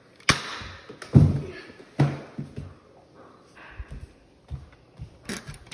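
A sharp snap of a Nerf dart blaster firing, followed by heavy thuds and scattered knocks of footsteps on the stairs, and another sharp snap near the end.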